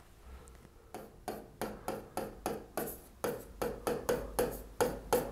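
A steady run of short, sharp clicks or taps, about three a second, starting about a second in after a moment of near silence.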